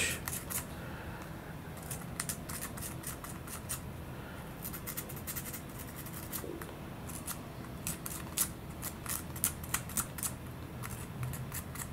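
Folded-over coarse sandpaper lightly scuffing a plastic servo connector plug, roughening its surfaces and corners. It makes a quiet run of short, irregular scratchy strokes that come more often in the second half.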